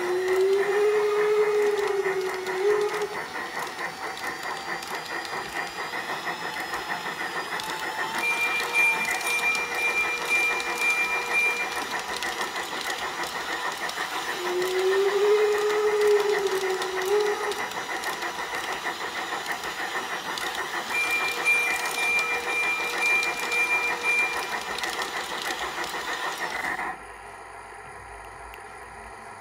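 A Piko G-scale class 80 model steam locomotive running with its sound running: a steady chuffing steam hiss, with a low wavering whistle of about three seconds at the start and again about halfway through, and a thin high tone twice in between. About three seconds before the end the sound drops suddenly to a faint hum.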